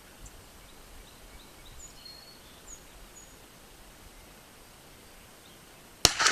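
Quiet outdoor background with a few faint bird chirps, then near the end a single loud gunshot from a Winchester Model 94 .30-30 lever-action rifle, with a second sharp crack right after it.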